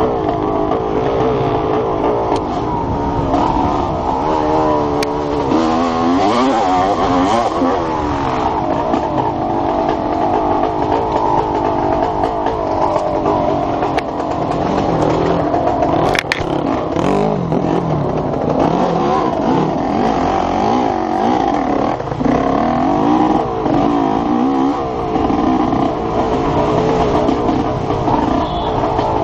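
Enduro motorcycle engine heard close from the bike itself, revving up and down again and again as the rider accelerates and backs off on a dirt trail. A single sharp knock stands out about 16 seconds in.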